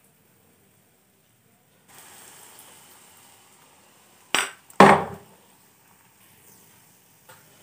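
Malpua batter sizzling as it deep-fries in hot oil in an iron kadai, starting about two seconds in and slowly fading. A little past halfway come two sharp metal clanks in quick succession, the steel slotted spoon knocking against the pan, and a lighter clink near the end.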